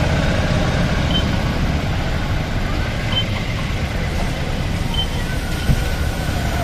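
Steady low rumble of a running vehicle engine, with a short high beep about every two seconds and a single sharp knock near the end.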